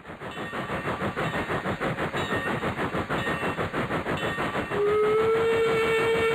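Steam locomotive running with a fast, even chuffing, then its whistle comes in about five seconds in and holds one steady note.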